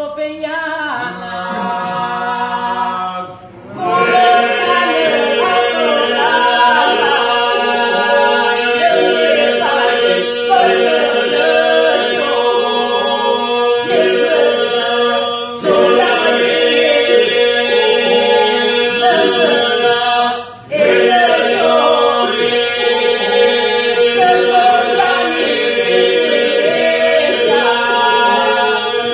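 Albanian Lab iso-polyphonic folk singing: a group of men's and a woman's voices sing over a steady held drone, with short breaks about four, sixteen and twenty-one seconds in.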